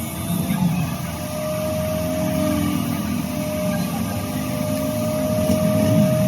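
Steady low rumble of a running engine, with a thin humming tone that fades in and out.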